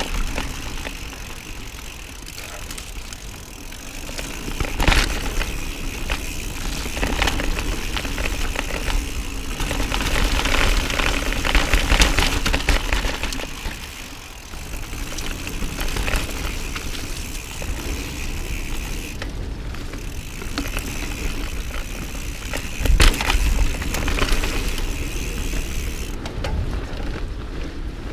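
Mountain bike descending a rough technical downhill trail: steady tyre and rattling noise over the ground, with wind buffeting the helmet-mounted camera's microphone. A couple of sharper knocks from hard hits, one about five seconds in and another about eighteen seconds later.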